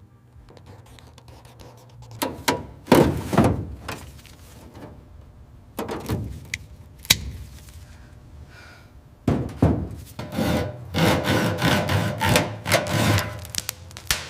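Workshop hand-tool work: irregular scraping and rubbing strokes with sharp knocks, a few at first and then a dense run of strokes from about nine seconds in.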